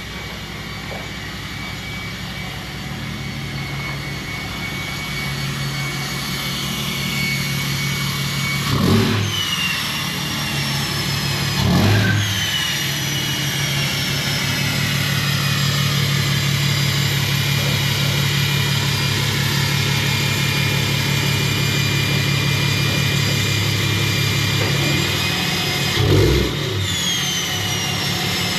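2008 Ram 2500's Cummins 6.7-litre inline-six turbo-diesel running at low speed, growing louder as the truck backs in close. Three short blips of throttle come at about 9, 12 and 26 seconds in, each followed by a high whistle that falls away.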